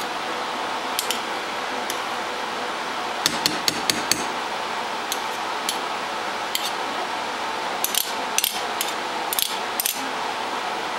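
Sharp clinks and taps of a utensil knocking against cookware, coming in small clusters a few seconds apart over a steady hiss.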